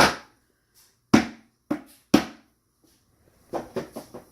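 Hammer blows on a wooden block, knocking the glued corner joint of a wooden beehive box together: four sharp strikes about half a second to a second apart, then four quicker, lighter taps near the end.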